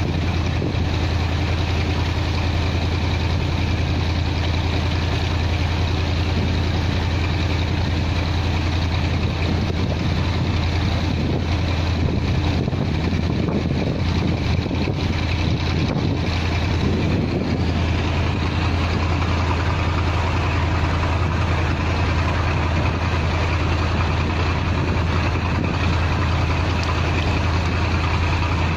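Mekong river cruise boat's engine running steadily under way: a constant low drone that does not change, with water rushing past the hull.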